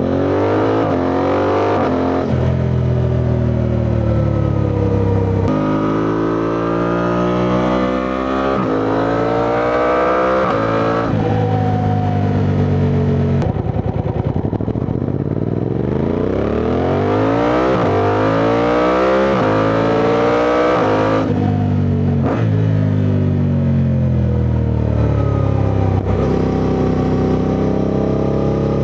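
Suzuki V-Strom 800DE's parallel-twin engine under hard acceleration, revs climbing and dropping sharply at each upshift, about half a dozen times, with one longer dip and climb in the middle.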